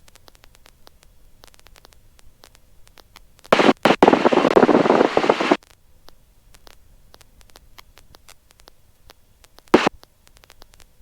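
Helicopter headset intercom line: faint static scattered with crackling clicks. About three and a half seconds in, a burst of noise lasts about two seconds, and a short one comes just before the end.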